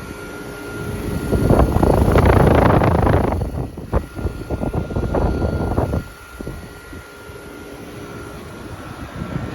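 Outdoor air-conditioning condensing units running: a steady fan and compressor whoosh with a faint high whine. The whoosh swells loudly about a second in for roughly two seconds, then turns rougher and uneven before easing off.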